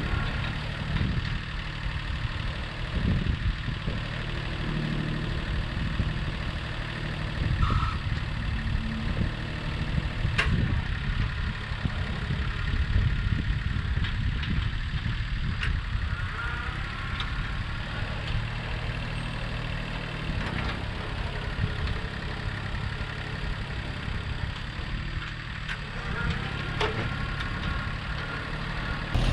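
International Harvester 234 compact diesel tractor's engine running steadily at a distance as it works with its front loader, with a few brief clicks.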